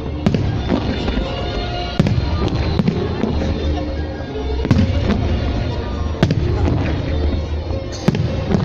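Fireworks shells bursting, a sharp bang every second or two, over music playing throughout.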